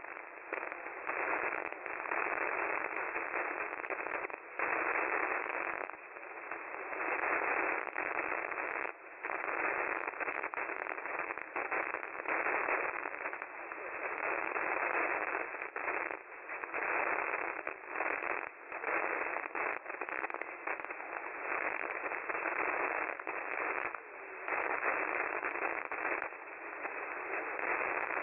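Radio static: a steady, thin hiss with crackling ticks and brief dropouts, from a radio receiver picking up no clear signal.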